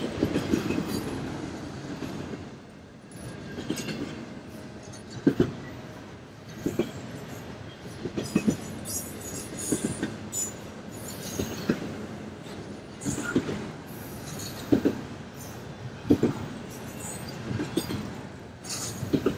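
Norfolk Southern freight train cars rolling past, their wheels knocking over rail joints in a steady clickety-clack, about one knock every second and a half, over a continuous rumble.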